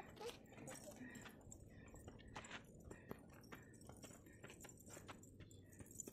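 Near silence with faint footsteps on a dirt road: scattered light taps at an irregular pace.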